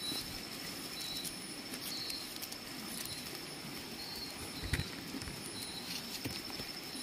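Night stream-side ambience: a steady high-pitched insect drone with a short double chirp repeating about once a second, over a low steady rushing of the stream. One soft knock on the pebbles comes about two-thirds of the way through.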